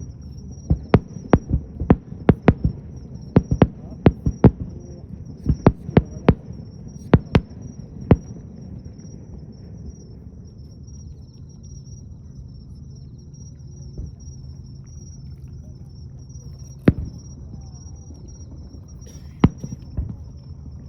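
Fireworks bursting: a rapid string of sharp bangs, about two a second, through roughly the first eight seconds, then a lull with a low rumble and a few single bangs near the end.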